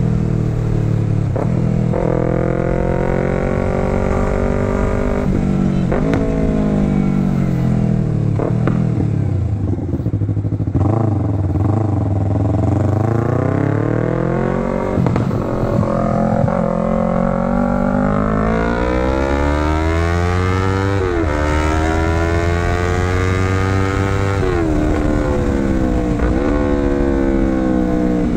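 Yamaha R3's parallel-twin engine under way, its pitch climbing through the gears and dropping sharply at each upshift, with a stretch of slowing down in the middle before it accelerates again.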